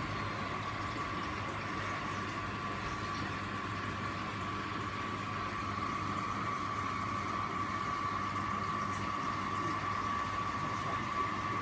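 Steady running of reef aquarium equipment: the hum and rush of pumps moving water, with a constant high-pitched whine over it.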